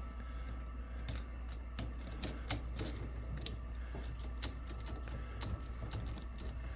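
Irregular light clicks and taps of small metal parts as wheel hubs are set onto an RC rock crawler's axles and tightened, over a low steady hum.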